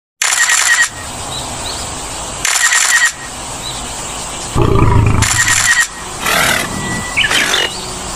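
Lion roaring, heaviest about halfway through, mixed with short bursts of hissing noise that recur every few seconds.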